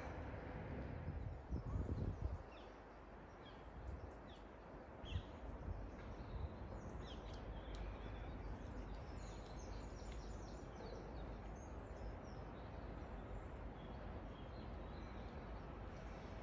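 Open-air ambience: a steady low rumble with a stronger gust of wind on the microphone about two seconds in, and scattered faint bird chirps.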